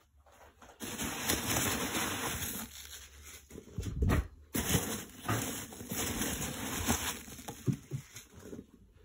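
Foam packing peanuts rustling and squeaking in a cardboard box as a hand rummages through them, with a dull thump about four seconds in.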